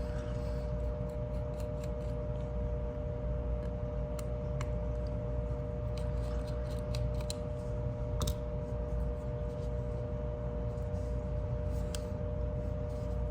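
Scattered light metallic clicks and ticks as a folding knife is taken apart with a small Torx driver, over a steady background hum.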